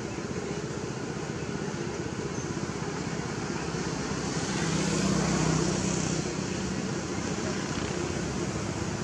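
Steady outdoor background noise with a motor vehicle passing: its engine hum swells and fades about halfway through.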